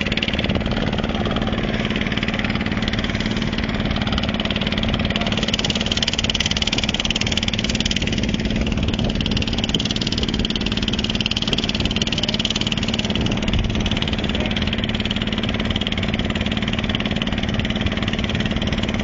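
Motorboat engine running steadily with an even low hum, under a constant hiss.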